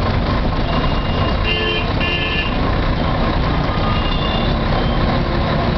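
Busy city street traffic: a steady rumble of engines and tyres, with vehicle horns tooting twice in quick succession about a second and a half in, and fainter horns a little later.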